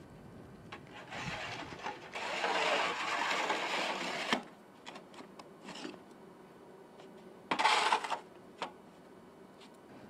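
Snow shovel scraping along a snowy sidewalk. A long stretch of scraping runs from about a second in to near the halfway point, then there are shorter scrapes and a few knocks, the loudest a brief scrape about three-quarters of the way through.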